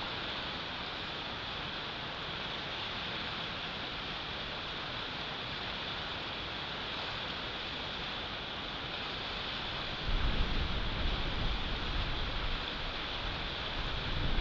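Wind blowing over an outdoor nest-cam microphone in a snowstorm: a steady hiss, with gusts buffeting the microphone in a low, uneven rumble starting about two-thirds of the way in.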